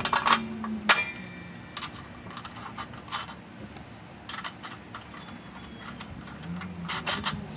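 Metal clicks and clinks of bolts, nuts and a steel bracket being handled and fitted to a travel trailer's A-frame: a handful of sharp, separate clicks, one ringing briefly about a second in, and a quick cluster near the end.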